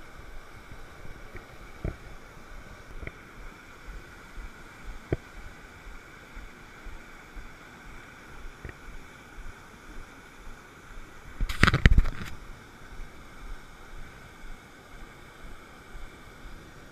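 A mountain stream rushing steadily over boulders and small cascades. Scattered faint knocks, and a brief cluster of loud sharp knocks about two-thirds of the way through.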